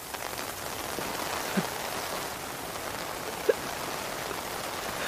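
Heavy rain falling steadily, an even hiss, with two brief louder sounds standing out over it.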